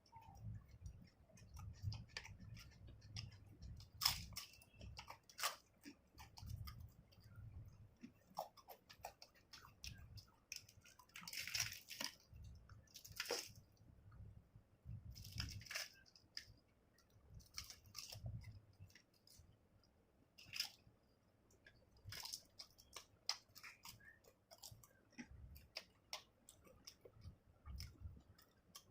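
A person chewing and biting food close to the microphone, with wet mouth clicks, smacking and a few louder crunching bites spread through.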